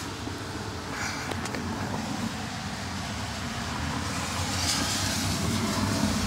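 Hand pressing and shifting a plastic door-sill trim panel back into place, with a few faint clicks about a second in, over a steady low rumble that grows a little louder near the end.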